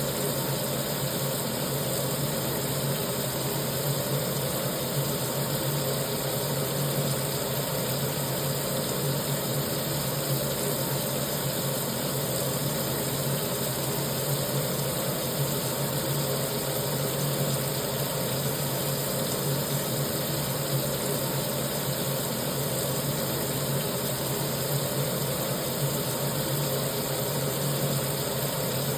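Kitchen sink tap running, water pouring steadily into the basin.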